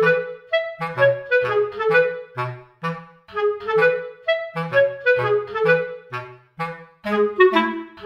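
Background music: a light, bouncy woodwind melody, clarinet-like, over short bass notes.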